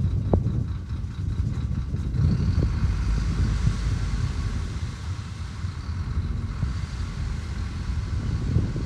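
Heavy diesel engine of earthmoving machinery running steadily, a continuous low rumble.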